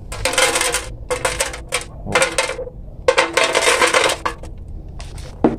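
Loose granular bonsai substrate falling from a Chinese elm's root ball and rattling into a clear plastic tub, in four bursts as the root ball is lifted from its pot and shaken.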